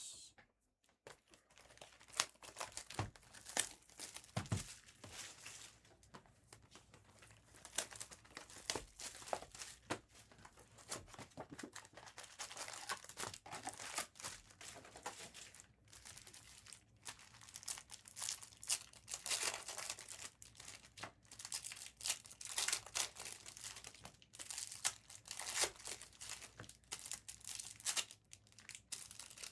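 Foil trading-card pack wrappers being torn open and crinkled by hand, with irregular crackling and tearing throughout as packs are ripped and handled.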